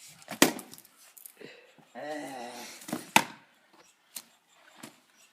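Sharp knocks of wood being chopped: a loud strike about half a second in, another a little after three seconds, then lighter knocks. A short voice-like sound with a wavering pitch comes about two seconds in.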